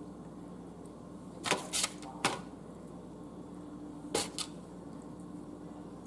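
Kitchen handling sounds: short light clicks and knocks, three in quick succession about a second and a half in and two more a little past the four-second mark, over a steady low hum.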